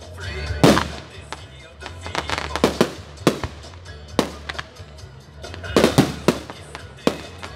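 Aerial firework shells bursting overhead with sharp bangs, a dozen or so in irregular clusters. The loudest come about a second in and again near six seconds in.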